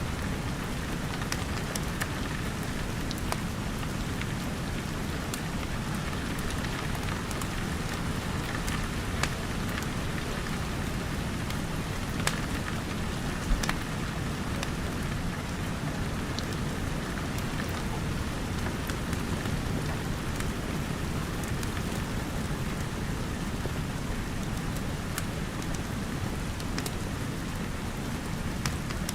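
Steady rain falling, an even hiss with a low rumble beneath it, broken by scattered sharp crackles and pops from a wood fire, a few of them louder than the rest.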